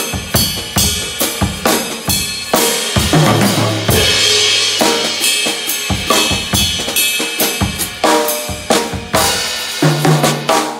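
KUMU drum kit played in a busy groove of snare, bass drum and cymbals, with a tom fill ringing low in the middle and another near the end.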